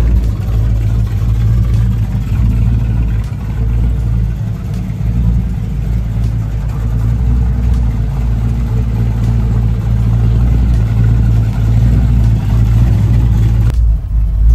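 1967 Mercury Cougar street rod's V8 idling steadily with a deep exhaust note. Near the end the sound turns muffled, now heard from inside the cabin.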